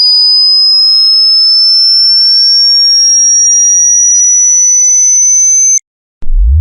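Electronic sine-tone sweep: a high, piercing tone gliding slowly upward together with a lower tone rising steadily in pitch. Both cut off abruptly near the end, and after a brief gap a new tone starts very deep and climbs quickly.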